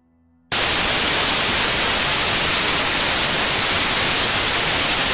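Loud television static: an even white-noise hiss that cuts in suddenly about half a second in and holds steady.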